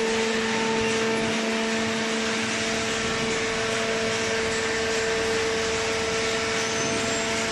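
Hydraulic baling machine running with a steady hum, its pump and motor droning on one unchanging pitch.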